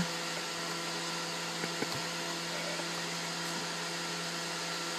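Steady hiss with a low electrical hum from a CB radio setup between transmissions, with a short click at the start and a couple of faint ticks about two seconds in.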